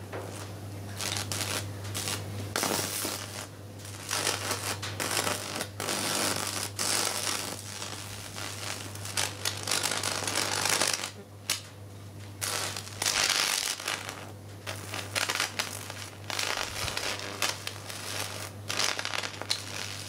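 Electrical arc at live electrodes burning into a circuit board and capacitor, crackling and sizzling irregularly over a steady low electrical hum.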